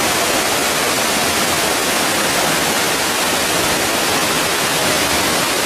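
Waterfall: a steady rush of falling water with no break.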